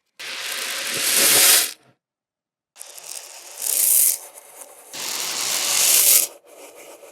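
Small plastic beads pouring and rattling in three rasping bursts, each a second or two long with silent gaps between, each swelling louder and then cutting off suddenly. A quieter rattle follows near the end.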